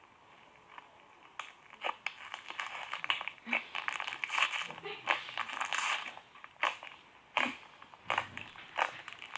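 Slime being squished and worked, giving irregular crackling clicks and crinkles that start about a second in.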